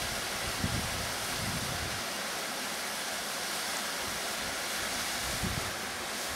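Small waterfall rushing steadily down a rock face, heard as an even hiss. Gusts of wind buffet the microphone in the first second or so and again near the end, with a calmer stretch in between.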